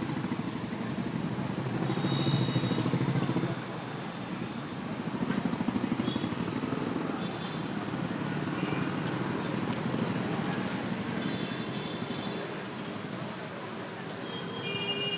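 City street traffic: a continuous rumble of engines and tyres, with louder vehicles passing about two seconds and five seconds in. A few short high chirps come through now and then.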